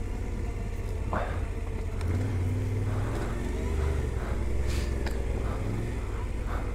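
Yamaha Ténéré 700's parallel-twin engine running at low, shifting revs on a gravel descent, with a few sharp knocks from the bike over the rough track.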